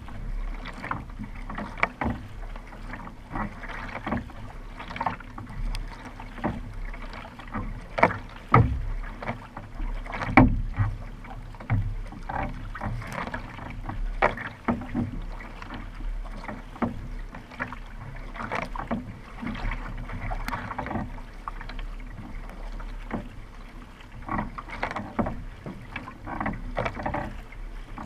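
Kayak paddle blades splashing into the water stroke after stroke, alternating sides, with water rushing along the hull of a racing kayak under way.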